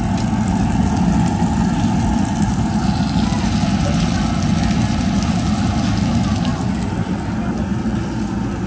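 Steady low rumble of a tabletop Korean barbecue grill's ventilation with a faint crackle of meat sizzling on the grill plate.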